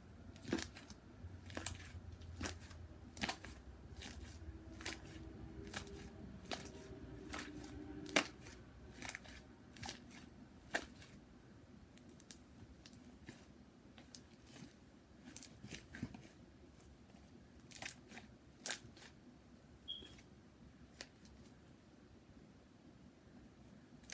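Slime mixed with shaving cream being kneaded and stretched by hand, giving irregular sharp clicks and pops, thick over the first half and sparser later.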